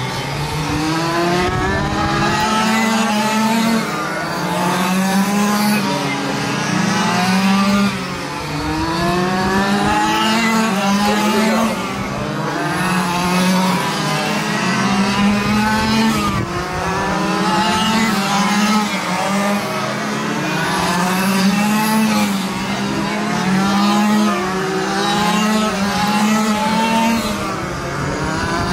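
Several quarter-scale RC oval race cars lapping, their small engines revving up and easing off again and again as the pack goes around the corners, with a steady low hum underneath.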